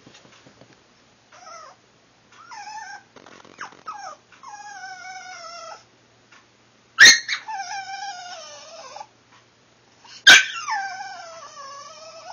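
A puppy whining to be let down off the bed. It gives several short high whines, then a longer one, and then two sharp yelps, each drawn out into a long falling whine.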